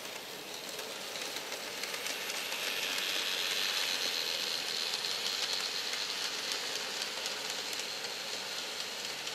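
N gauge model electric locomotive and freight wagons running past: a small electric motor's whine with fast clicking of wheels over the rail joints. It grows louder as the train comes by, is loudest about three to five seconds in, then eases a little.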